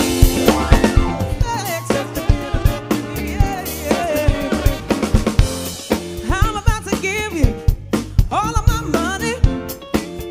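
Live band playing: a drum kit with snare and bass drum keeping a steady beat under electric guitars and bass, with a lead vocal singing, most strongly from about six seconds in.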